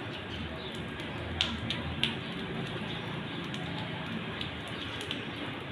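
Cats crunching dry kibble from a foil tray, with two sharp clicks about a second and a half and two seconds in, over a steady background hiss.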